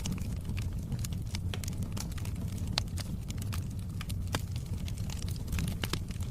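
Wood fire crackling in a fireplace, with frequent irregular sharp pops and snaps over a steady low rumble.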